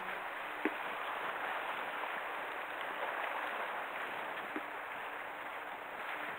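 Steady hiss of the sea washing along a rocky shore, with two short clicks, one under a second in and one about four and a half seconds in.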